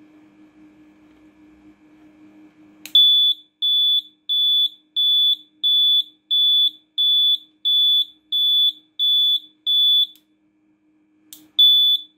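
Piezo buzzer on a 555-timer LED bike indicator circuit beeping at a high pitch about one and a half times a second, the flasher's ticking signal that the indicator is on. The beeping starts with a click about three seconds in, stops for about a second near the end, and restarts with another click.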